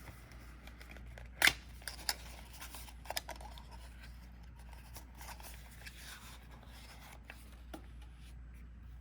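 A sealed card-game starter deck being opened and handled: a sharp snap about a second and a half in, a few smaller clicks, then soft rustling of wrap and cards.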